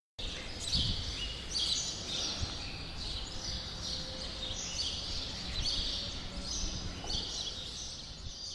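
Songbirds chirping in short, high phrases that repeat about once a second, over a low rumble of background noise.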